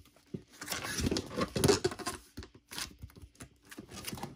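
Thin cardboard promo cards and paper being handled and flipped through by hand: irregular rustling, scraping and light taps, with a short pause about halfway.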